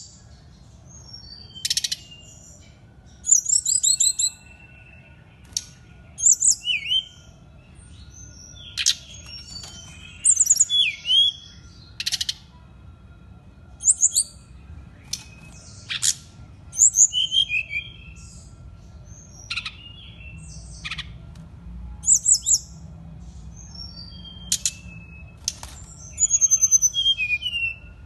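A caged SRDC, a small flycatcher kept as a songbird, singing again and again: short phrases of high, quick whistles and trills every second or two, mixed with sharp clicking notes.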